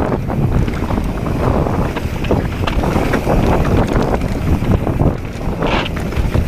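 Wind buffeting an action camera's microphone on a fast mountain-bike descent, over the rumble of tyres on rock and the frame and chain rattling with many small knocks. A short scrape-like hiss comes near the end.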